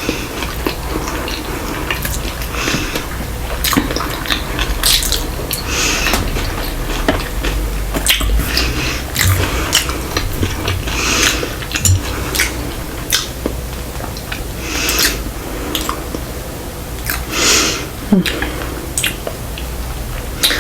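Close-up chewing and wet mouth sounds of eating sushi, with scattered short clicks of utensils against a dish, coming irregularly.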